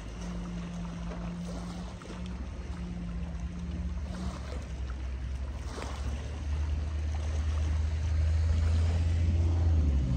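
Low, steady drone of a boat's engine out on the water, growing louder in the second half.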